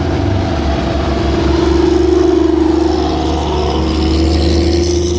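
A vehicle or machine engine running steadily with a droning hum that swells slightly about two seconds in.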